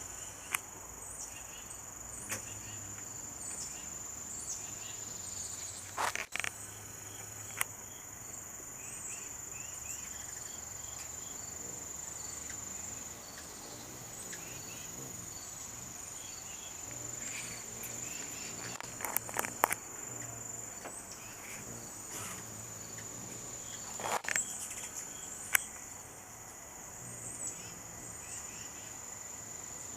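Insect chorus: a steady, unbroken high-pitched trill, with a few short sharp clicks at scattered moments.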